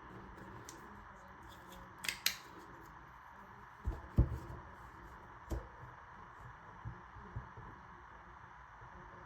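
Magnetic embroidery hoop being handled as its clamp magnets are set: two sharp clicks about two seconds in, then a few soft knocks and light taps, over a faint steady hum.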